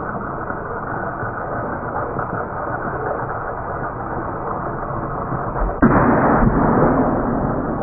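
A blue party balloon bursts with a single sudden pop as the LEGO City toy train drives into it, about six seconds in, followed by about half a second of louder noise. A steady rushing noise runs under it.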